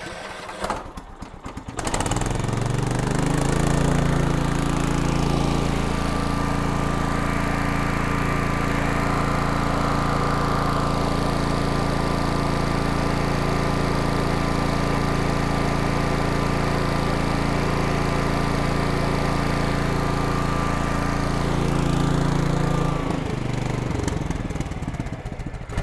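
Air-cooled Kohler Command engine starting about two seconds in, running at a steady speed, then shut off and winding down near the end.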